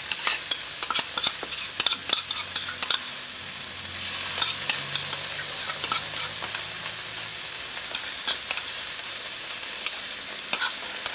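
Chopped onion and tomato masala frying in oil in a pan, a steady sizzle, with scattered short taps and scrapes of a wooden spoon stirring the pan and scraping chili paste from a bowl.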